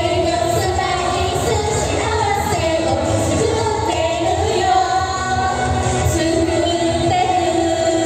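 Pop song with female voices singing into handheld microphones over a backing track with a steady beat.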